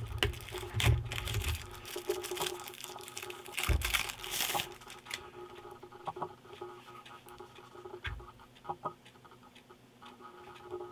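Phone packaging being handled and opened: rustling, scraping and tearing with many small clicks and taps, busiest in the first few seconds, then scattered light clicks.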